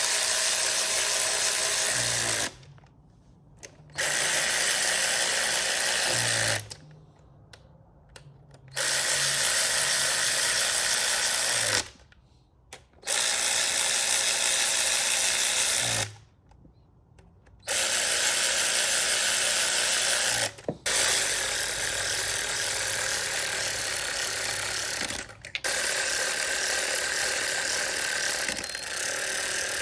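Power drill running in repeated bursts of two to four seconds, with short pauses between.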